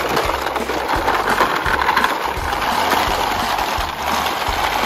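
Plastic toy cars rolling in a line over dry dirt, a steady rattling and scraping of their wheels with many small clicks.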